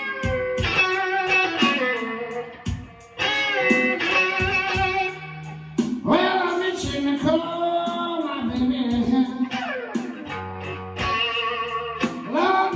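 Stratocaster-style electric guitar playing a slow blues solo, with long sustained notes bent up and down between short phrases.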